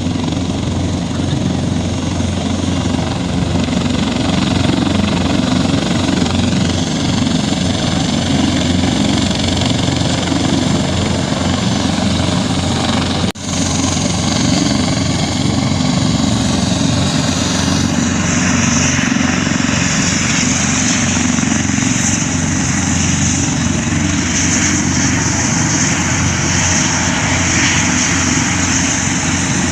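Aircraft engine running steadily and loudly. There is a brief dropout about thirteen seconds in, and a high, steady turbine-like whine joins about eighteen seconds in.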